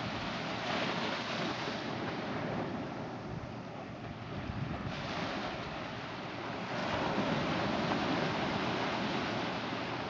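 Atlantic surf breaking and washing up a sandy beach, a steady rushing hiss of foam and water that swells louder about two-thirds of the way through.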